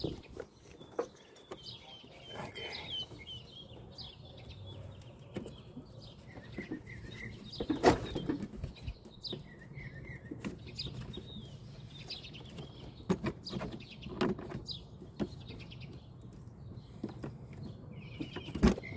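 Small birds chirping in short, scattered calls, with occasional sharp clicks and knocks; the loudest knock comes about eight seconds in.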